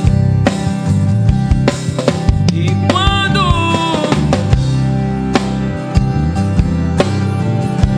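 Instrumental break in a gospel song: a band's drum kit, with bass drum and snare hits, plays over bass and sustained chords, and a short bending melody line enters about three seconds in.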